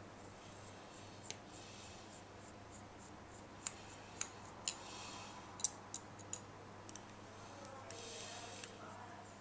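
Faint sharp clicks of a small hand tool against the metal of an RC nitro engine, with a few short scraping stretches, as the four screws holding the pull-start are undone. About eight clicks come between about one and seven seconds in.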